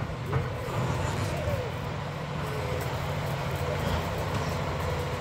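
Diesel engine of a heavy demolition machine running steadily at a low, even pitch.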